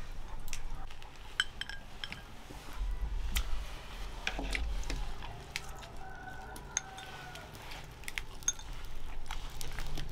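Chopsticks clinking irregularly against ceramic bowls and plates during a meal, with a few clinks that ring briefly.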